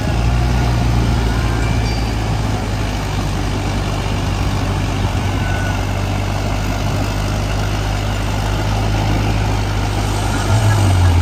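Tractor diesel engine running steadily at high revs while hauling two loaded trailers through mud; about ten and a half seconds in, the revs rise and its pitch climbs.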